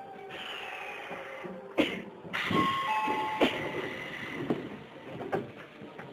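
A two-note descending ding-dong chime sounds inside an Odakyu 8000 series train car, with a hiss of air and a couple of sharp knocks around it.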